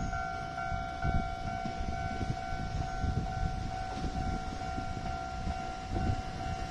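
Railway level-crossing alarm sounding a steady, rapidly pulsing electronic tone, over a low rumble.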